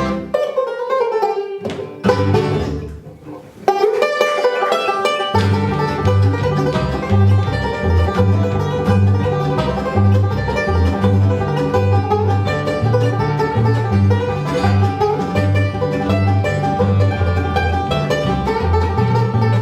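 Bluegrass band playing an instrumental passage led by banjo, with guitar and mandolin. A falling pitch slide comes in the first second or so and a rising one near four seconds in, then the bass comes in at about five seconds with a steady pattern under the picking.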